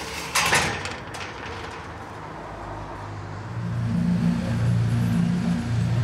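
A metal security grille on a shop window is slid or pulled across with a brief, loud rattling scrape about half a second in. From about three and a half seconds a low, pulsing bass line of background music comes in.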